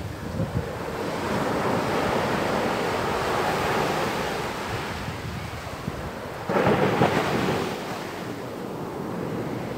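Sea surf breaking and washing up a sandy beach, with a louder wave surging in suddenly about six and a half seconds in.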